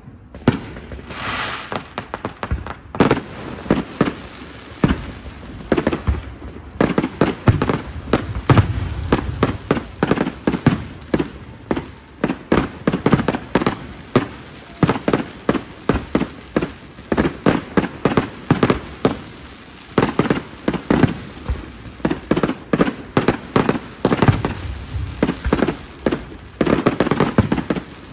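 Aerial fireworks display: shells bursting one after another, several sharp bangs a second with crackle between them, thickening into a dense barrage near the end.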